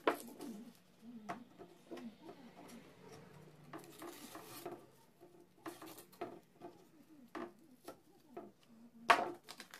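Small cut wooden pieces clicking and tapping as they are handled and pressed onto a board, with a sharp knock right at the start and a louder one near the end.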